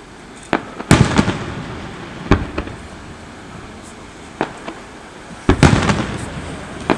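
Aerial fireworks shells bursting in a series of sharp bangs, a second or two apart, each followed by a rumbling echo; the loudest come about a second in and in a cluster near the end.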